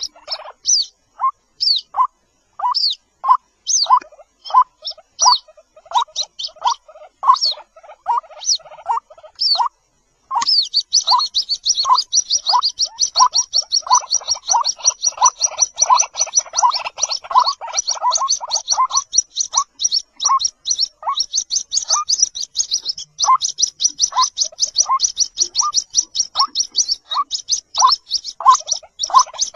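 White-breasted waterhen chicks calling: short peeping notes repeated about twice a second, with higher chirps over them. After a brief break about ten seconds in, a fast high trill joins the lower peeps.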